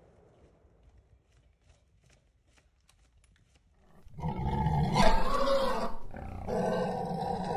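About four seconds of near quiet with a few faint ticks, then a loud, deep animal growl starts and carries on.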